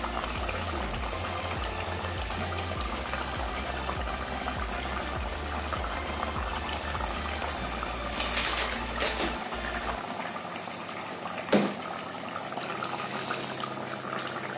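Thick fish curry bubbling steadily in a clay pot at a simmer. A low hum cuts off about ten seconds in, and there are a few brief knocks in the second half. This thick bubbling is the sign that the curry is cooked through and the masala has soaked into the fish.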